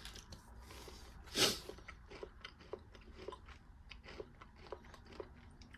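Quiet, close-up chewing of a crunchy chocolate-nut energy bar: soft crunches and small clicks from the mouth, with one louder burst about a second and a half in.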